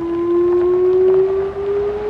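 Whelen 2906 electronic outdoor warning siren sounding a single steady tone that rises slowly in pitch as the test signal plays.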